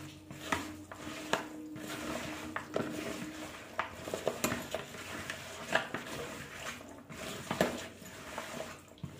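Chicken marinade being mixed by hand in a plastic bowl: wet mixing sounds with irregular light clicks and clinks.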